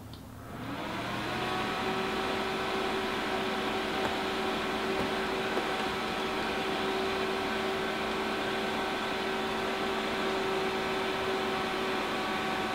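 Electric blower fan of a CarCapsule inflatable car cover switching on, spinning up to speed within about a second, then running steadily with an even hum and rush of air as it keeps air circulating in the enclosure.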